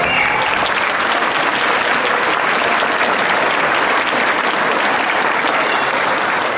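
Audience applauding: dense, steady clapping from many hands that carries on unchanged throughout.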